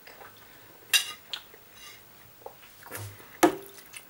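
A metal spoon clinking against dishes: one sharp, ringing clink about a second in, then a few softer clinks and knocks near the end.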